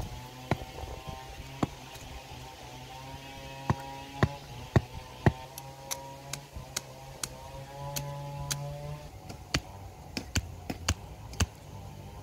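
Steady hum of a distant motor engine with a slight waver in pitch, broken by sharp irregular clicks and snaps.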